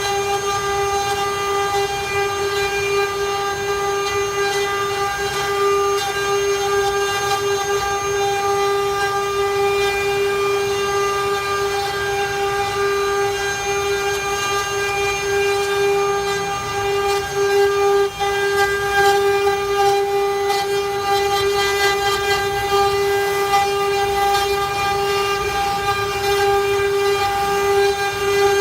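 CNC router spindle running at a steady speed with a constant high whine while the bit carves wood, a rough cutting noise beneath the tone.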